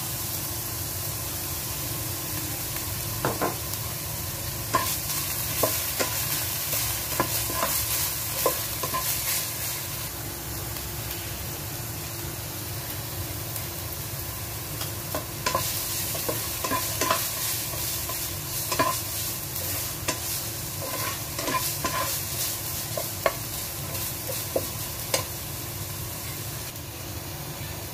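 Minced meat sizzling as it fries in a frying pan, with the steady hiss of the frying broken by irregular clicks and scrapes of utensils stirring against the pan.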